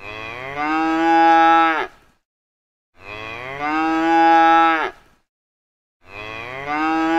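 Domestic cow mooing: three matching long moos about three seconds apart. Each starts lower and quieter, rises in pitch and swells, then holds before cutting off.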